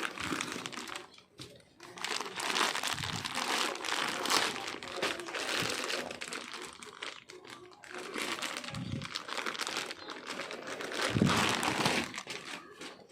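Packaging being handled and unwrapped: irregular crinkling and rustling with short crackles, loudest near the end.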